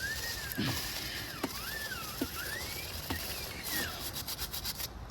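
A stiff brush scrubbing a degreased motorcycle drive chain, a steady hiss that turns into a quick run of clicks near the end. Over it, a whistling tone glides up and down for most of the time.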